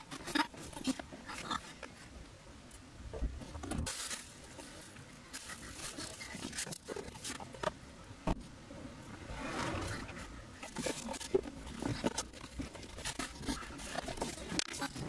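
Irregular rustling, scraping and scattered knocks of handling noise, with a few louder hissy swells, about four seconds in and again around ten seconds in.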